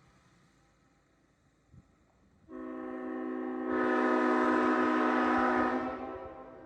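Tabby S5T five-chime locomotive air horn blown in one long blast, a chord of several steady notes. It comes in about two and a half seconds in, opens up to full loudness about a second later, and cuts off near the end.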